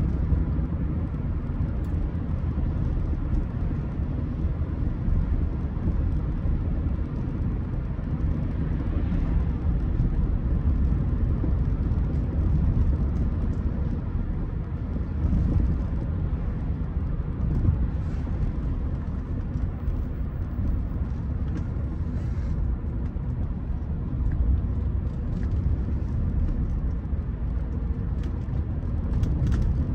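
Rolls-Royce Silver Spirit on the move: a steady low rumble of road and engine noise.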